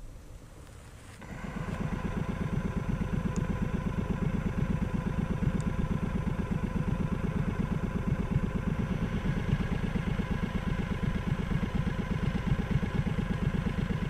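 An engine running steadily at an even pitch, coming in abruptly about a second in.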